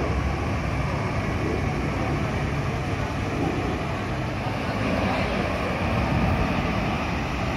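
Large intercity buses' diesel engines running as the buses pull away, a steady low rumble.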